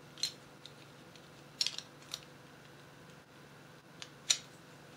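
A handful of light, sharp clicks and taps of hard plastic model-kit parts being handled and pressed together, the sharpest a little past four seconds in.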